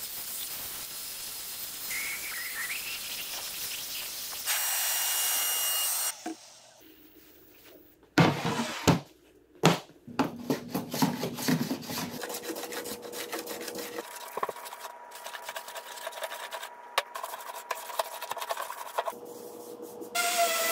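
An electric paint sprayer hissing steadily for the first few seconds. After a short pause and a few knocks, a hand plane shaves a pine board in a long run of short, quick strokes.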